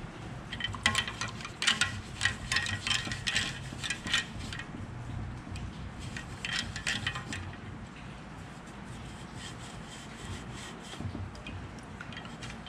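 Rapid light clinks and taps of small hard objects with a faint ringing tone, in a burst of about four seconds and a shorter one a couple of seconds later, over a low steady hum.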